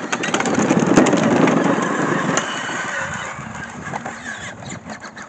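Power Wheels ride-on toy buggy, running on an 18 V Ryobi battery, driving off: its electric drive motors and gearboxes whir and its plastic wheels roll over grass and dry leaves. It starts suddenly, is loudest about a second in, then fades steadily as the buggy moves away.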